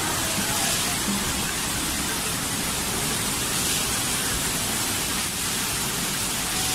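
Strong storm wind and heavy wind-driven rain, a steady loud rushing noise.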